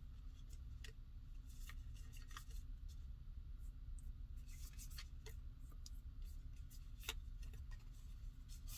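Faint, irregular light clicks and taps of cards being handled, over a steady low hum.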